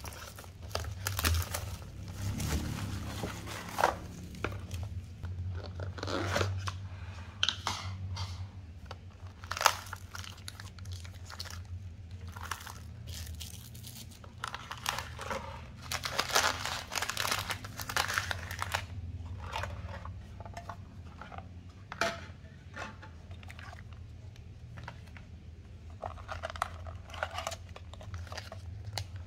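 Plastic shrink wrap and packaging of a self-heating rice box being torn, crinkled and handled, followed by foil and plastic food pouches rustling as they are lifted out. The sound comes in irregular crackling bursts with a few sharper clicks.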